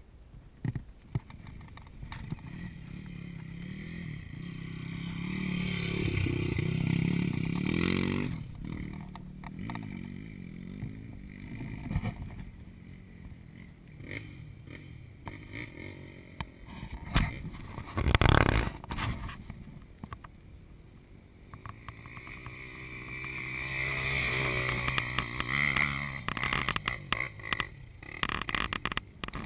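Off-road trail motorcycle engine revving up and easing off twice, swelling to its loudest a third of the way in and again near the end, with knocks and clatter over rough ground and one loud knock a little past the middle.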